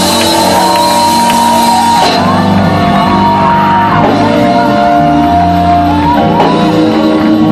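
Live gospel music: a singer holding long notes that slide from one pitch to the next over steady sustained instrumental chords, with shouting.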